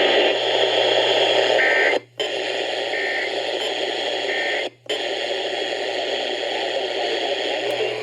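Radio receiver static: a steady hiss over a low hum, cutting out completely for a moment twice, about two seconds and about five seconds in.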